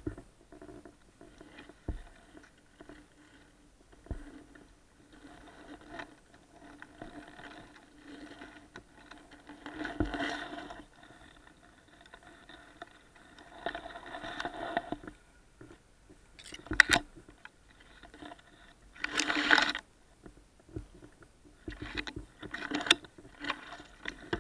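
Electric motors and gear drives of 1:10 scale RC crawler trucks whining faintly in stop-and-go spurts as they crawl through tall grass, with short bursts of scraping and rustling grass. The loudest burst comes about three-quarters of the way in.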